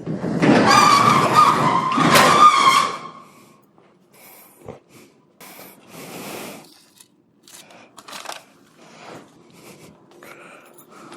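A metal door scraping and squealing as it is pulled shut, for about three seconds, followed by quieter clicks and rustles of handling.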